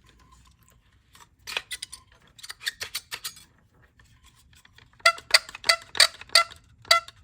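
Quick-Grip bar clamp being tightened: scattered light clicks and rattles, then about five seconds in a run of sharp, ringing clicks at about three a second as the trigger is squeezed.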